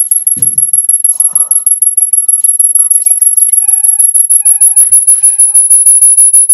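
A piercing high electronic tone pulsing rapidly, several times a second and quickening toward the end. Midway come three short electronic beeps under a second apart: the Photo Booth countdown before a recording starts.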